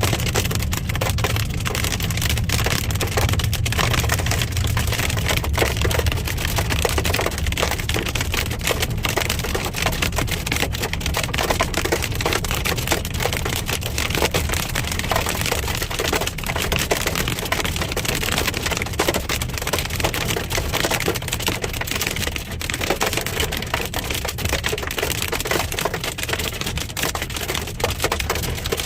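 Hail hitting a car's roof and windshield, heard from inside the cabin: a dense, rapid clatter of small hard hits that never lets up, over the low rumble of the moving car.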